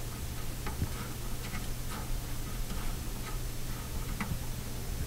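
Light, irregular clicking as a plastic pivot nut is turned by hand and unscrewed from the drain body of a bathroom sink's pop-up drain, over a low steady hum.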